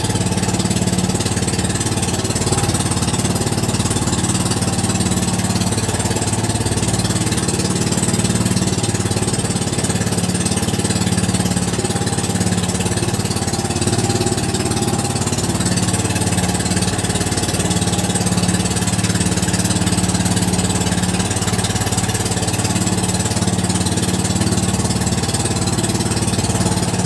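Small engine of an outrigger fishing boat (bangka) running steadily under way, with a constant low hum, and water rushing and splashing off the hull and outriggers.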